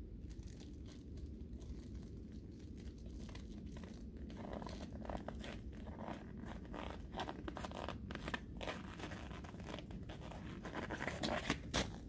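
Winter jacket and gloves rustling and crinkling as a man works with his hands overhead, hanging a bird feeder on a tree. Irregular crackles grow denser about four seconds in, and louder crunches come near the end as he steps down off a snow-covered stump.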